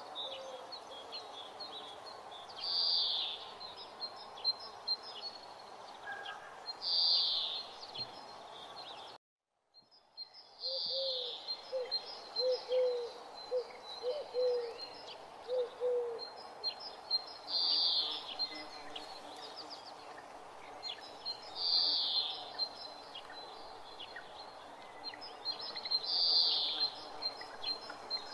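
Birdsong ambience: many small chirps with a louder call repeating about every four seconds, over a steady background hiss. The sound cuts out briefly about nine seconds in, and a run of about eight short, low notes follows.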